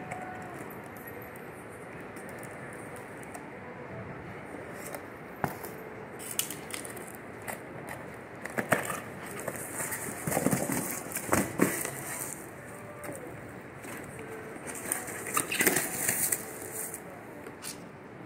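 Cardboard shipping box being torn open by hand: tape and flaps ripped and crumpled in crackling tears and clatters. They start a few seconds in and grow busier and louder toward the end, over a steady background hiss.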